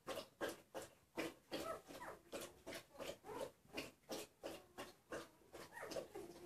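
A newborn puppy squealing and whimpering in quick, short, faint cries about three times a second, some rising in pitch, as it is held up and tipped head-down in early neurological stimulation handling.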